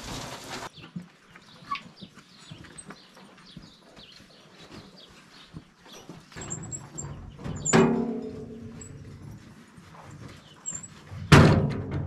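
Two loud metallic clangs, about three and a half seconds apart, each ringing briefly before dying away, amid scraping and handling noise of forking silage. A few faint high chirps, like small birds.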